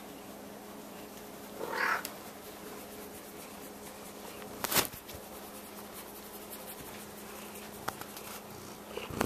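Domestic cat meowing once, about two seconds in. A sharp click comes about halfway through and fainter clicks near the end, over a steady low hum.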